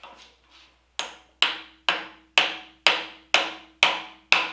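A mallet hammering a knife guard down onto a puukko blade's tang clamped in a bench vise. A few light taps come first, then steady sharp blows, about two a second, each with a short ring.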